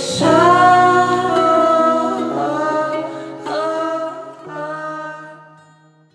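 Closing jingle: a voice singing long held notes, the pitch changing a few times, fading out near the end.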